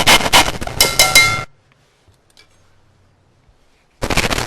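A deafening burst of crashing, clattering noise with metallic ringing, cutting off about a second and a half in. After a near-silent gap, another loud burst starts near the end. It is an exaggerated dubbed sound effect standing in for citrus being zested.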